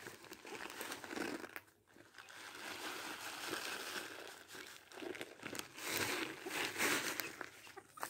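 Clear plastic bag of chicken feed crinkling as it is handled, in a few bouts with small sharp crackles.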